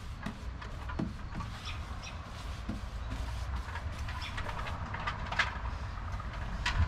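Wind rumbling on the microphone, with the faint scratch and swish of a paintbrush spreading paint over the wooden side of a cabinet and a few faint high chirps.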